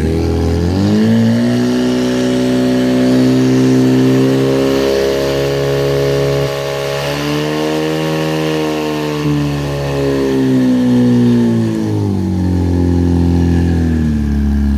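Portable fire pump's engine running hard at high revs while it drives water through the attack hoses. Its pitch climbs sharply at the start, wavers down and back up midway, and falls away near the end.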